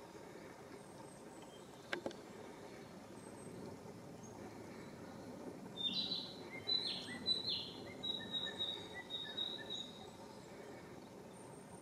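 A songbird sings about halfway through: a few high, downward-sweeping notes and then a run of short, quick chirps, over a steady background hiss of outdoor ambience. A single sharp click comes about two seconds in.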